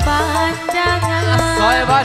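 Live dangdut band playing an instrumental passage between verses: hand-played kendang drum strokes over a steady bass, with a melody whose notes bend and slide.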